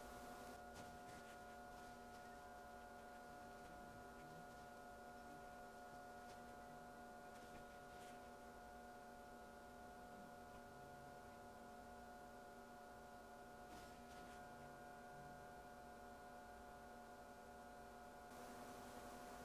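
Near silence: a faint, steady electrical hum made of several unchanging tones, with a few faint clicks.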